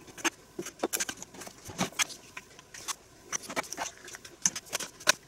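Hard plastic parts of a Littlest Pet Shop Sweet School Days playset clicking and tapping irregularly as they are handled and fitted together during assembly.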